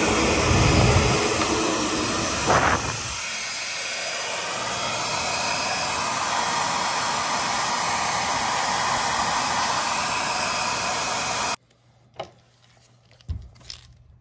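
Aerosol spray paint hissing in a steady stream onto a lure blank, over a spray booth's exhaust fan running loudly. The hiss cuts off abruptly about three-quarters of the way through, leaving a few faint handling clicks.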